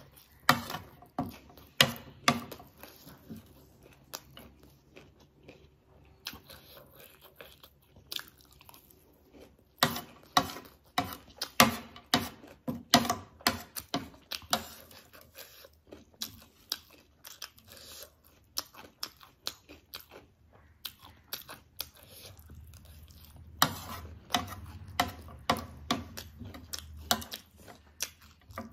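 Close-up crunching and chewing of crunchy spicy chatpate and dhungri (gol finger) snacks. Sharp crunches come in quick runs separated by quieter chewing pauses.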